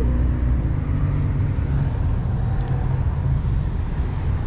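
Road traffic: motor vehicles running past, a steady low rumble with an engine hum that gives way to a broader rumble about half a second in.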